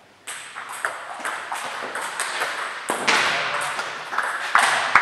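Table tennis rally: the plastic ball clicking off bats and the table about three times a second. About three seconds in, a louder, rough noisy sound comes up over the clicks.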